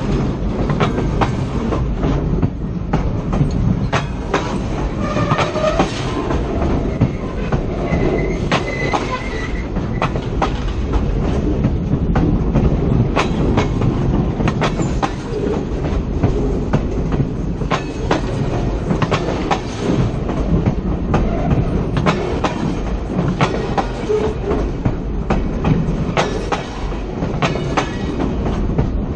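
Railcar wheels rolling directly over a camera placed between the rails: a loud, steady rumble with frequent sharp clicks and clacks of wheels over the rail.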